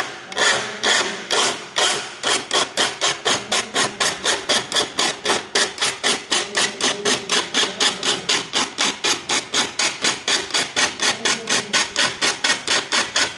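A saw file rasping across the steel teeth of a hand saw held in a vise. It runs in an even rhythm of short strokes, about four a second, two strokes to each tooth as it works along the blade during sharpening.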